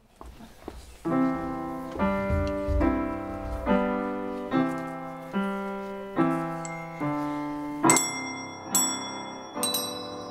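Upright piano playing a slow, steady run of chords, one struck about every second, starting about a second in. Near the end, high bell-like notes ring out over the chords.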